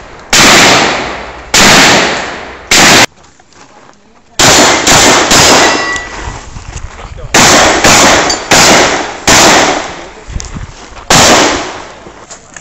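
12-gauge shotgun firing about a dozen shots in quick strings, each shot very loud with a long echoing tail. There is a short pause of about a second and a half about three seconds in.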